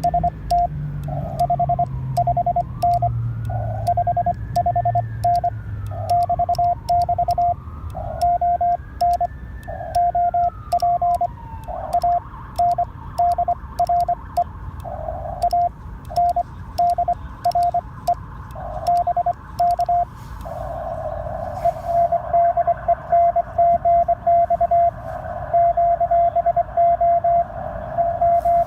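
Morse code (CW) on an amateur radio transceiver: a single steady tone switched on and off in short and long elements, dots and dashes, with sharp clicks along the keying. A faint whistle glides up and down three times in the first twelve seconds, and radio hiss sits under the tone after that.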